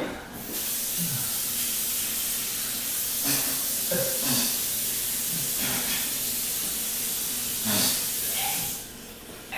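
Steady hiss starting about half a second in and cutting off near the end, with a few faint grunts over it.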